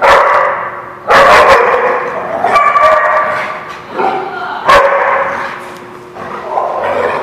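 Dogs barking in play while they wrestle, a string of loud, sharp barks over the first five seconds, then quieter toward the end.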